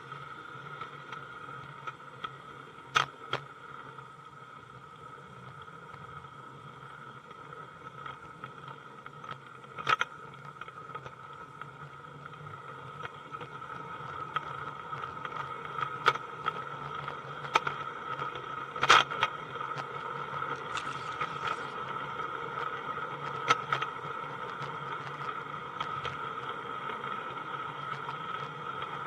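Garden-scale model train running along its track, heard from aboard a tipper wagon: a steady whine with sharp clicks every few seconds from the wheels on the rails.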